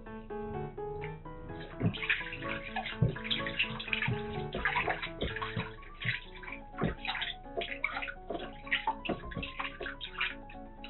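Water sloshing and splashing in a washbasin as a small kitten is bathed by hand, with many quick splashes starting about a second and a half in. Light background music plays underneath.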